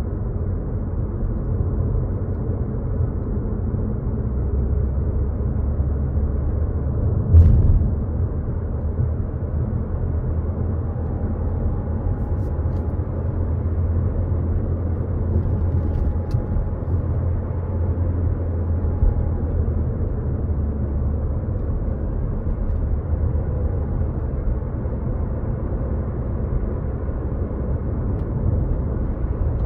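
Steady low rumble of a car driving on a road, heard from inside the cabin, with a single sharp knock about seven seconds in.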